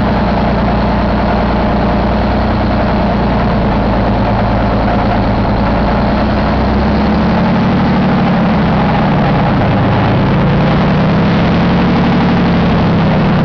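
1978 Cummins Big Cam I inline-six diesel engine running steadily at idle.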